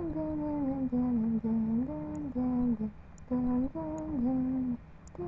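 A female voice humming a wordless tune: a string of held notes that step up and down, broken into short phrases with brief pauses between them.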